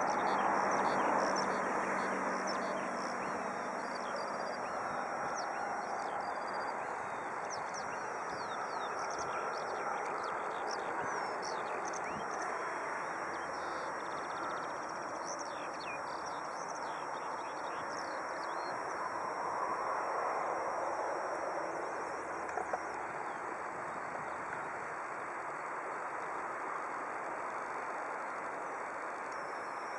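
Distant jet engines running as the aircraft rolls along the runway: a steady rush that eases a little after the first couple of seconds. Small birds chirp over it now and then.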